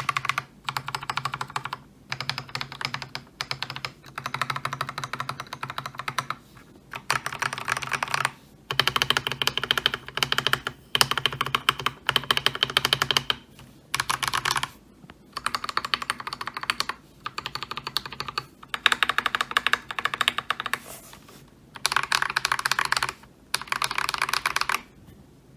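Typing on an Akko 3098B mechanical keyboard fitted with lubed Akko Lavender Purple tactile switches: rapid keystrokes in bursts of one to two seconds, with short pauses between bursts.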